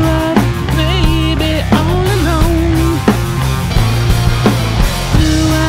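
Rock music with a drum kit keeping a steady beat under a wavering melodic line.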